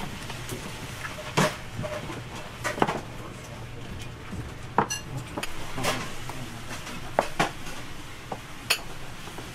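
Ceramic rice bowls and chopsticks clinking and knocking as food is dished out, several scattered light clinks, over a steady low hum.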